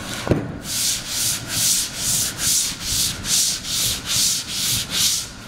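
Hand-rubbing the shiny surface of a black rubber sole sheet with an abrasive block, about eleven even back-and-forth strokes a little over two a second, after a single knock as the block is set down. The sheet is being roughened so the adhesive paste will grip.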